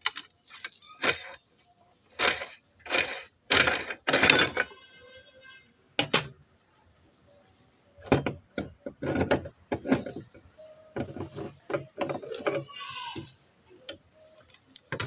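Meat grinder working through bubble gum: irregular crunching and clattering bursts, with a brief squeak about five seconds in.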